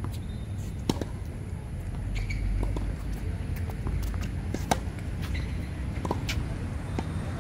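Tennis rally on a hard court: sharp pops of the ball off rackets and court, the two loudest about a second in and just before the middle, with fainter ticks between, over a steady low rumble.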